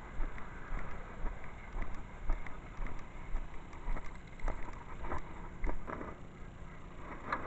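Footsteps of a person walking with a chest-mounted camera: soft thuds about twice a second with clicks and rattles of the camera and carried gear, and a sharper knock near the end.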